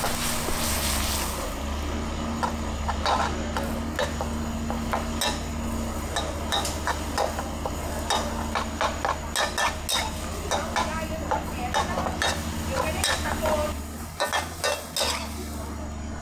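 Metal spatula repeatedly scraping and striking a wok as food is stir-fried, with sizzling underneath. The strikes come in quick, irregular runs and thin out near the end.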